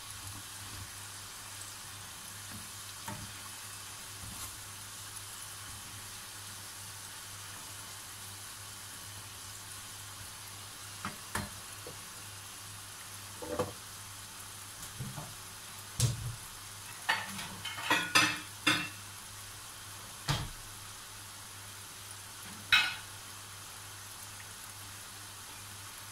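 Samosas deep-frying in oil at medium heat: a steady sizzle. In the second half, a series of short clinks and knocks from the steel slotted skimmer against the pan as the samosas are turned.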